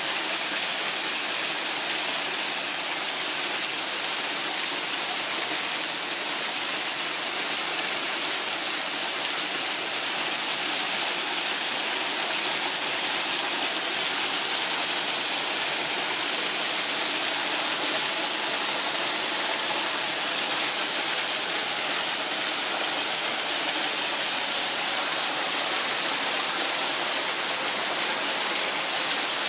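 Waterfall pouring down over rock: a steady, even rush of water.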